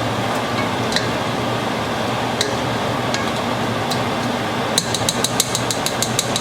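Raw shrimp cooking in hot oil and butter in a pot, a steady sizzle, with a few sharp clicks and then a quick run of clicks near the end.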